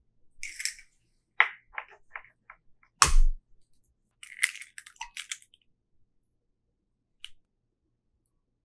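An egg being cracked on the rim of a glass bowl: light clicks of the shell being handled, then one sharp knock about three seconds in, followed by a crackle of shell as it is pulled apart and the egg drops into the bowl.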